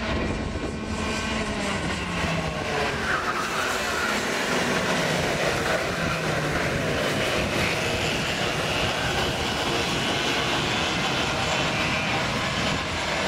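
Several two-stroke Raket kart engines racing together, their pitch rising and falling as the karts brake and accelerate through the corners.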